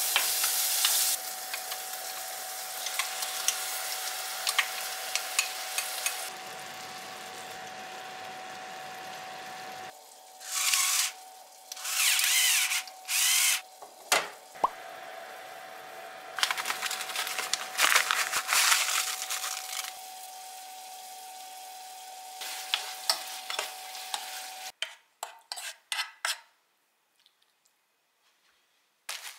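Bacon, broccoli and tofu sizzling in a frying pan while a wooden spoon stirs and scrapes, over the steady thin whine of an induction hob. About ten seconds in there are several short bursts of an electric pepper mill grinding. Near the end the sizzle and whine stop, leaving a few spoon clicks and then near silence.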